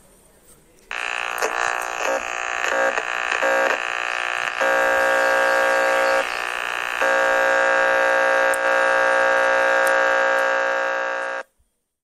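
A harsh electronic buzzing tone from a radio sound effect. It starts about a second in, breaks up in short stutters for a few seconds, then holds steady with one brief dip, and cuts off suddenly near the end.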